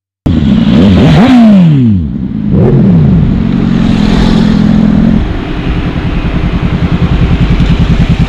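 Sport motorcycles, including a Honda VFR and a Honda CBR, passing close by: the engine sound cuts in suddenly and drops sharply in pitch as one bike and then another goes past, about a second and two and a half seconds in. From about five seconds a motorcycle engine runs at low revs close by with a fast, even pulsing beat.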